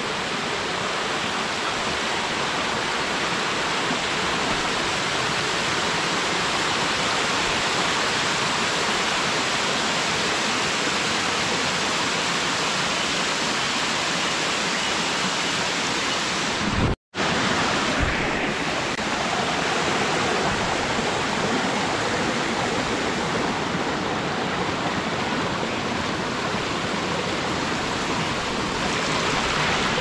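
A waterfall and the creek below it rushing steadily over rocks. The sound drops out for an instant just past halfway.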